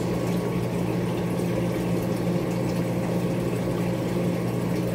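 Aquarium fish-room equipment running: a steady low hum of pumps over a wash of water and bubbling from the tanks' filters.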